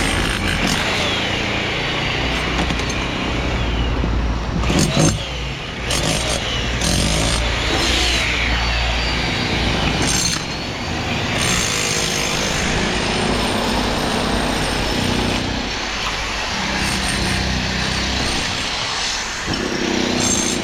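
A construction machine's engine running steadily, with knocks about five and ten seconds in and high squeaking now and then.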